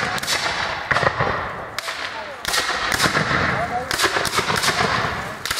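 A line of black-powder muskets firing a ragged, uneven volley: about ten sharp shots at irregular intervals, some in quick succession, each with a short echo.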